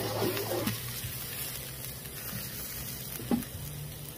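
Steady sizzle of water and steam on a hot Blackstone flat-top griddle as the stainless-steel dome lid is lifted off steaming green beans. A single knock comes a little over three seconds in.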